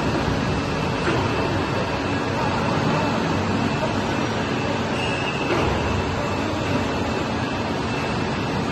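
Hydraulic power unit of a 3.5-ton offshore A-frame running steadily under test as its hydraulic cylinders slowly move the boom: a loud, even rush of machine noise with a faint high whine.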